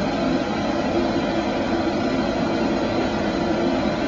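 A machine running steadily: a constant engine-like drone with a hum that does not change.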